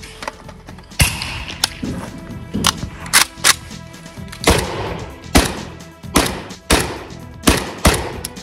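Kalashnikov rifle firing single shots in an uneven string, about ten over eight seconds, each shot ringing briefly. Background music with steady tones runs underneath.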